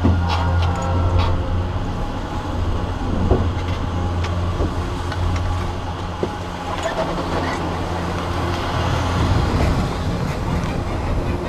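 Steady low hum of a chairlift's top-terminal machinery as the chair comes in and the rider unloads, with scattered clicks and scrapes of skis on snow. The hum eases off near the end as the rider moves away from the station.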